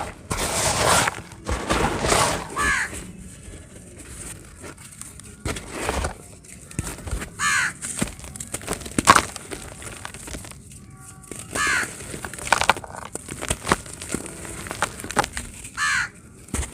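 Dry cement crumbling and crunching in irregular bursts of crackles, with a sharp crack about nine seconds in.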